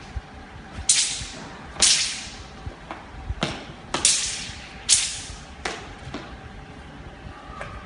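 A four-section martial-arts weapon (si tuan dou) swung hard through the air, giving about six sharp swishes roughly a second apart, each fading quickly.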